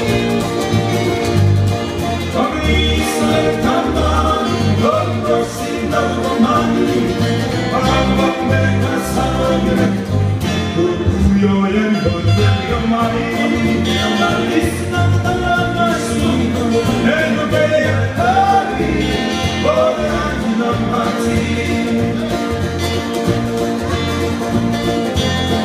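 Fijian sigidrigi string band playing live: strummed acoustic guitars, a lead guitar, ukulele and bass keeping an even pulse, with singing over the strings.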